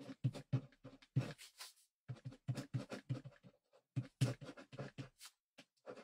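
Ballpoint pen writing: quick scratching strokes in rapid succession, several a second, with a brief pause about two seconds in.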